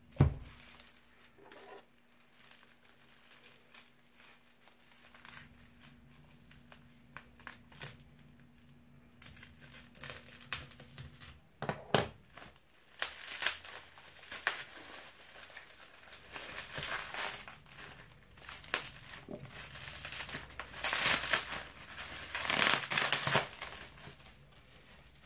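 Plastic bubble wrap crinkling and rustling in irregular bursts as it is handled and pulled off a boxed phone, getting busier and louder in the second half. There is a sharp knock right at the start.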